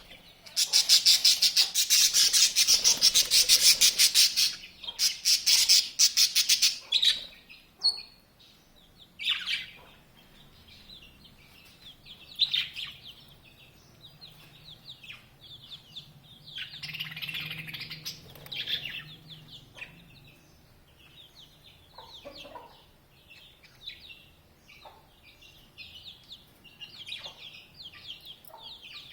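Birds chirping: a loud, fast chattering burst in the first few seconds, a second burst around five to seven seconds in, then scattered short chirps, some falling in pitch.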